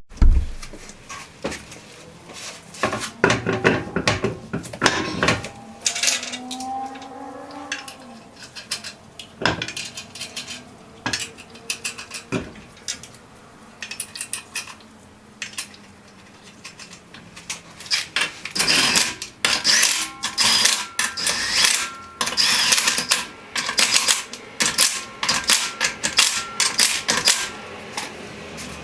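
Metal tools and car parts clanking and clicking in an irregular run of sharp knocks, busiest in the second half, during hands-on reassembly of the wheel hub and wheel.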